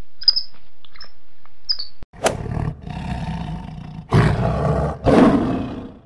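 A few short, high squeaky monkey calls, then from about two seconds in a lion growling and roaring, deep and rumbling, with the two loudest roars about four and five seconds in.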